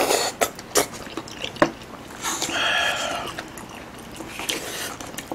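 Close-up slurping of stew broth from a wooden spoon, with several sharp clicks of the spoon and a second, longer slurp about two to three seconds in; light spoon clicks follow as rice is scooped.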